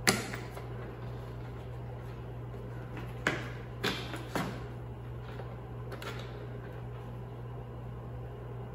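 A few short, sharp clicks and knocks from battery cables and terminal hardware being handled on a lithium battery pack: the loudest one right at the start, three more in quick succession about three to four and a half seconds in, and a fainter one around six seconds, over a steady low hum.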